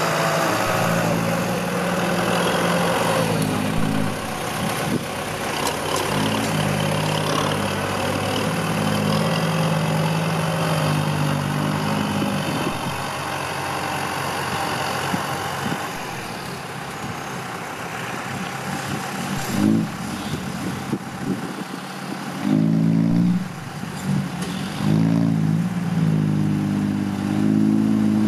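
Kubota farm tractor's diesel engine working, its pitch rising and falling with the load. It eases off in the middle and revs up sharply in a few short bursts near the end.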